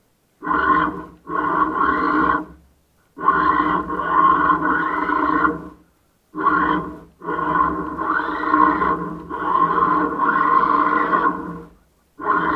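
Remote-control toy car running in short bursts, stopping and starting about six times.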